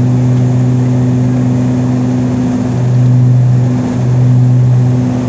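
Passenger aircraft in flight heard from inside the cabin: a loud, steady engine drone with a strong low hum that swells and dips a few times in the second half.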